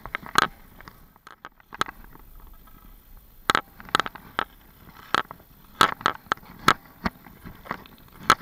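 Ice hockey skates scraping and cutting across natural lake ice, with sharp irregular clacks of a hockey stick striking the ice and puck while stickhandling.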